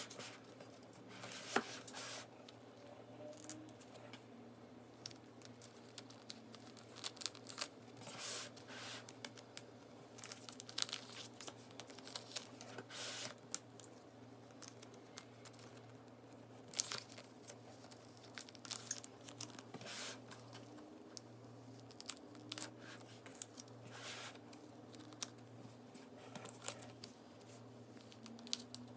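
Clear plastic binder sleeves crinkling and rustling as photocards are slid into and out of their pockets and the pages are handled. The sound comes in irregular scratchy bursts.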